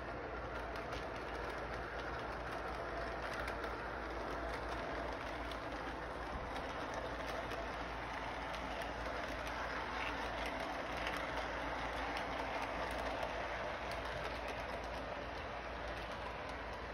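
Toy electric train running steadily around its track: a continuous motor hum and the whirr of small wheels rolling on the rails.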